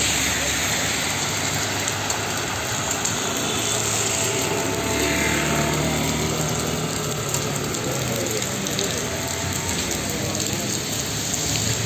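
Heavy rain pouring onto flooded pavement, a steady hiss, with cars driving slowly through the standing water, their engines humming and tyres swishing, one passing about five seconds in.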